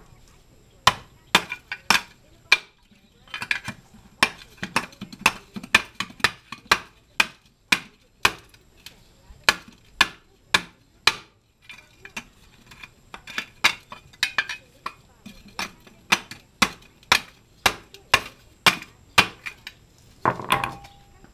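Hammer blows on a steel bar driven down into a catalytic converter, breaking up its clogged, failed core. Sharp metallic strikes come about two a second in runs, with a short pause about halfway and a rougher scraping sound near the end.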